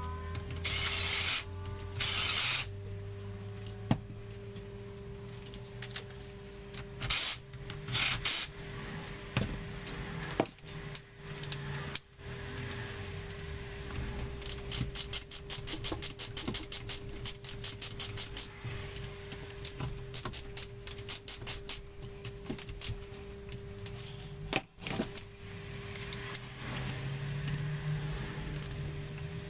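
Hand work on an A-series 1098cc engine during rebuild: two short hissing sprays in the first few seconds, more brief hisses a few seconds later, then a long run of fast clicks, over a steady hum.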